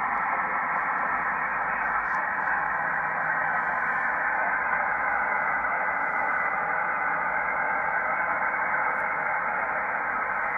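Steady hiss of band noise from a valve HF SSB transceiver's receiver (the KW2000A), cut down to the narrow voice passband, as it listens on the band after the operator has unkeyed; a short click comes right at the end.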